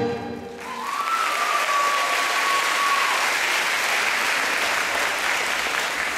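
Live band's closing chord cuts off, then an audience breaks into applause that holds steady. Early in the applause one long whistle rises and is held for about two seconds.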